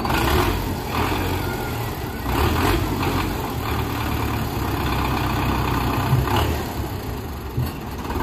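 Belarus tractor's diesel engine running steadily at low speed while it hauls a heavily loaded mud trolley.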